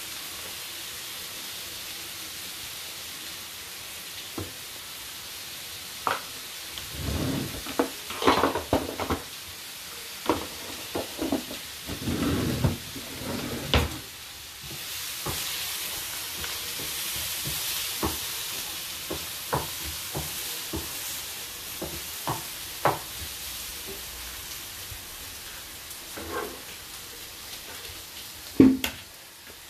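Onions sizzling in a frying pan on a gas hob, while a wooden spatula scrapes and knocks against the pan as they are stirred. The knocks come in bursts, with the loudest single knock near the end.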